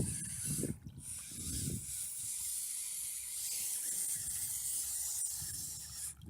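Steady hiss of shallow snowmelt runoff water flowing over a rocky, muddy bed, with wind buffeting the microphone in low rumbling gusts during the first two seconds and again near the end.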